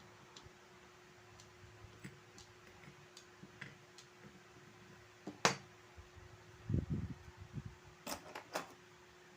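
Small clicks and taps of watch parts and tools being handled during a wristwatch repair, with one sharp click about halfway through, a few low knocks just after it, and more sharp clicks near the end, over a faint steady hum.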